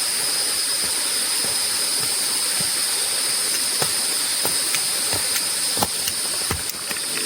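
Rushing water of a forest stream, a steady full-bodied rush with two steady high-pitched tones over it and a few faint scattered clicks.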